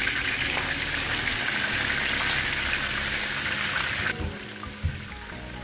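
Batter-coated fish fillets sizzling in hot oil in a frying pan, a dense crackling hiss. It cuts off suddenly about four seconds in, leaving soft background music.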